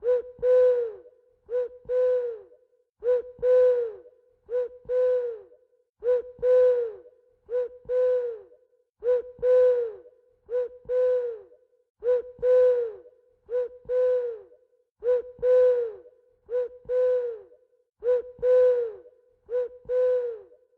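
An owl hooting in a steady repeating pattern: a short hoot followed by a longer one, each dropping in pitch at the end, the pair coming about every second and a half.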